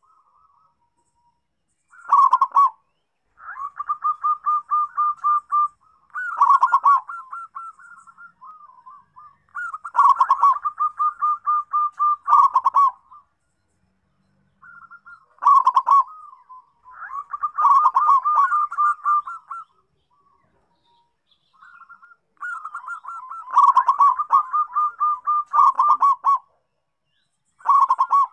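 Zebra dove (perkutut) singing: repeated phrases of rapid, pulsed cooing notes, each phrase lasting one to a few seconds, with short pauses between them.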